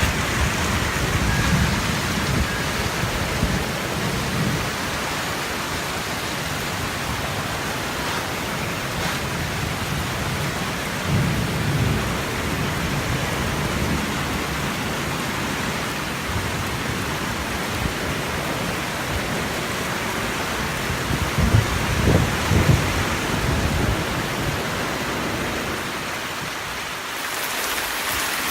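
Heavy rain falling steadily, with low rumbles swelling and fading a few times.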